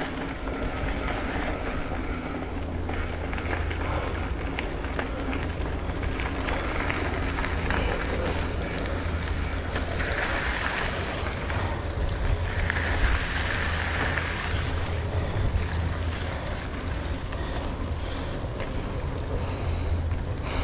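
Wind rushing over the microphone during a bicycle ride, over a steady low rumble, with a couple of brief swells of brighter noise about halfway through.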